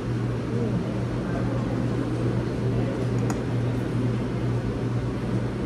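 Steady low hum of a restaurant dining room's background noise, with a faint click of cutlery on a plate about three seconds in.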